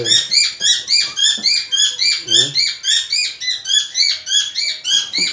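Pet parrot screeching in a fast run of short, shrill calls, about four a second, each rising and falling in pitch.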